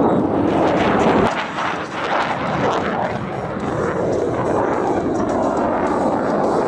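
Fixed-wing aircraft flying overhead, a loud steady rush of engine noise whose deep rumble drops away about a second in.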